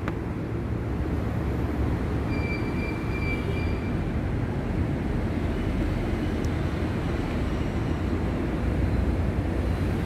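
Woodworking machinery running with a steady low rumble. A brief thin, high whistle sounds about two seconds in and lasts about a second.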